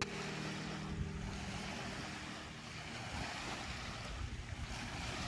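Small waves washing onto a sandy lake beach, with wind buffeting the microphone in an uneven low rumble.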